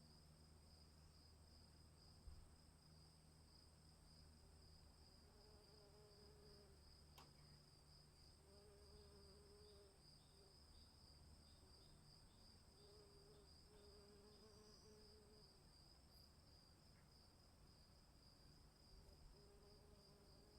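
Faint, steady chirring of crickets or similar insects, a high pulsing trill that never stops, with a short lower call recurring every few seconds and a low hum underneath.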